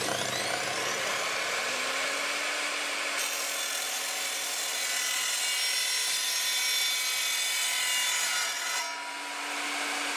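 Evolution R255SMS sliding mitre saw motor whining as it climbs to speed, then its blade cutting through PVC plastic pipe for several seconds with a dense rasping hiss. Near the end the motor winds down with a falling whine.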